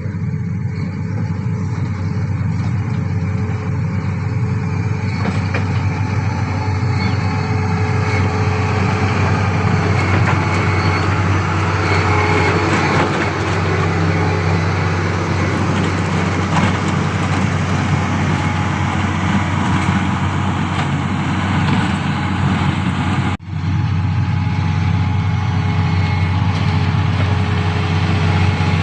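Heavy diesel road-building machinery running steadily: a deep, continuous engine drone with noise over it. The sound drops out for an instant about 23 seconds in.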